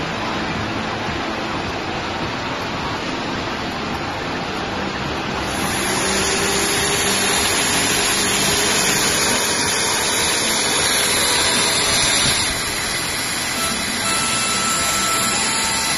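Garment-factory marker plotter running: a steady mechanical whirring hiss that grows louder and brighter about five seconds in.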